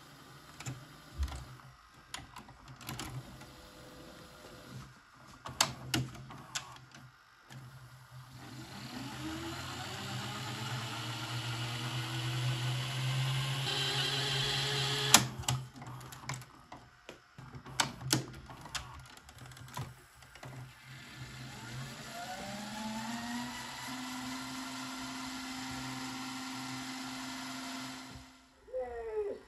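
A Sony SLV-X312 VHS video cassette recorder's tape mechanism clicking, then winding the tape at high speed twice: a whine that rises in pitch and grows louder, the first run ending in a sharp click, the second settling into a steady tone before it cuts off.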